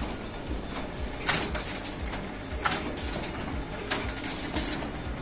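Xerox AltaLink C8055 copier and its finisher running a copy job to be hole-punched and double-stapled: a steady mechanical running with a low pulsing, broken by sharp clacks about every 1.3 seconds from the paper handling and finishing.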